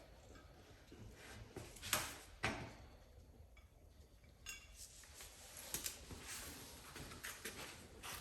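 A few faint, scattered knocks and clinks of hard objects being handled and set down, the loudest about two seconds in and again half a second later, with more light clicks through the second half.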